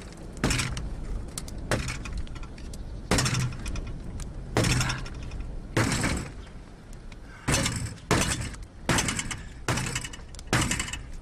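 Crumpled metal door of a crashed light aircraft being wrenched and banged loose: a run of about ten sharp metallic bangs and crunches, roughly one a second.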